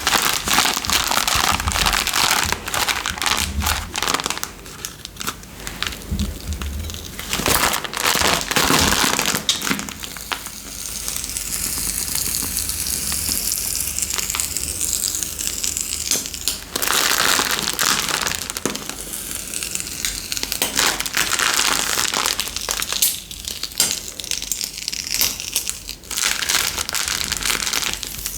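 Slime-making materials being handled by hand, giving a dense run of crunching and crackling clicks. A smoother hiss takes over for several seconds in the middle before the crackling returns.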